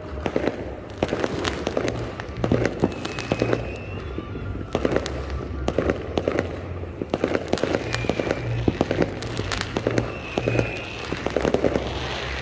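Many fireworks going off at once: a dense, irregular run of sharp bangs and pops that keeps going without a break.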